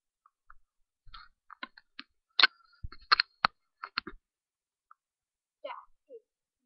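A run of sharp clicks and knocks, the loudest three coming between about two and a half and three and a half seconds in, from a webcam being handled and moved by hand.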